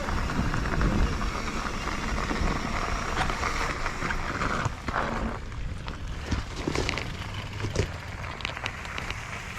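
Mountain bike rolling on a dirt trail, with wind rumbling on the microphone. About halfway through the rush eases, leaving scattered clicks and crunches of the tyres and bike over loose ground.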